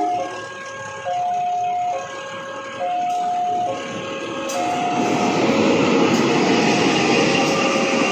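Level-crossing warning alarm sounding a steady high-low two-tone pattern, changing about once a second. About halfway through, the rumble of a CC 201 diesel-electric locomotive and its passenger coaches passing over the crossing rises and becomes the loudest sound, with the alarm still going under it.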